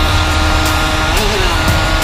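Wind rushing over the microphone and the steady drone of an Aprilia RS's two-stroke AM6 engine, fitted with an 86 cc aluminium top end, running at road speed. The tone wavers briefly about a second in, with music playing along.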